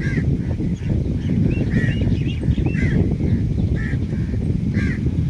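A bird calling over and over in short calls, about one a second and several close together in the middle. Underneath runs a loud, steady low rumble.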